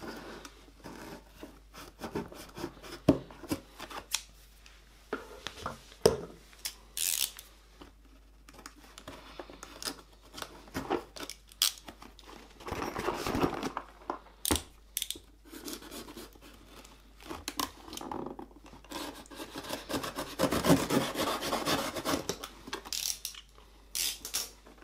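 A cardboard box being slit open along its sealed edge with a blade: scraping and cutting through cardboard and tape, with rubbing, clicks and knocks as the box is handled. Longer stretches of scraping come about halfway through and again near the end.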